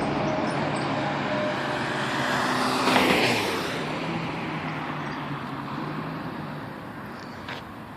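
Road traffic: a car passes close by about three seconds in, over a steady low hum, and the sound then fades away. A short tick comes near the end.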